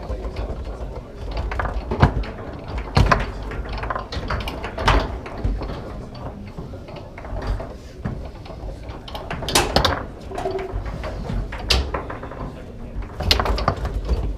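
Foosball play on a table with plastic men: the ball clacking off the men and the table walls while the rods and handles rattle, with about six sharp cracks of shots and blocks spread through.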